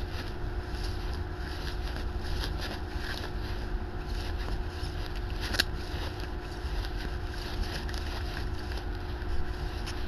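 Yu-Gi-Oh! trading cards sliding and flicking against each other as a stack is flipped through one card at a time, with a sharper click a little past halfway, over a steady low rumble.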